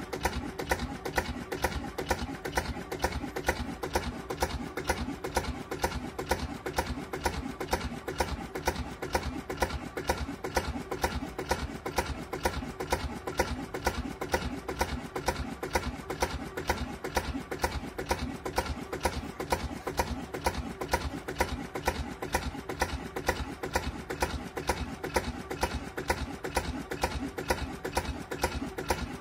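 Lister JP2 two-cylinder diesel engine ticking over nicely with a steady, even beat, running sweetly again after years of standing idle.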